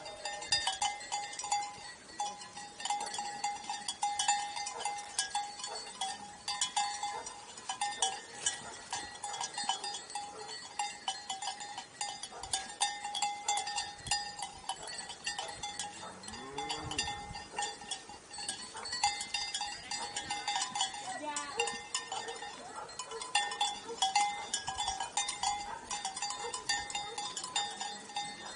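Bells on grazing sheep clinking and ringing without a break, a steady jangle of many small strikes. A sheep bleats once about halfway through, and a shorter call follows a few seconds later.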